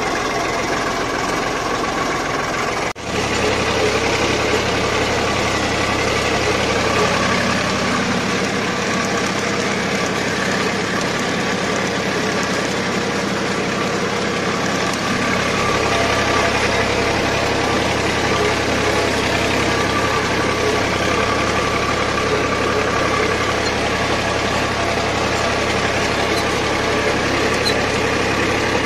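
Sonalika DI 750 tractor's diesel engine running steadily while the tractor is driven across a field, with a brief dropout about three seconds in.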